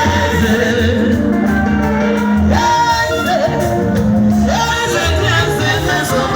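Live band music during a sound check: women singing held, gliding vocal lines over a prominent bass guitar line.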